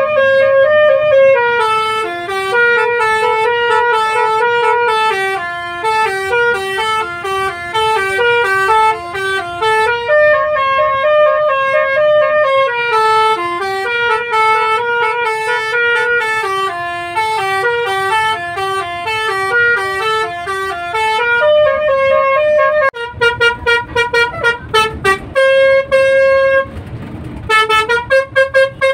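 Telolet bus horn, a multi-note musical air horn, playing a quick melody of short notes that step up and down. Near the end it switches to rapid staccato blasts, with a brief break shortly before it stops.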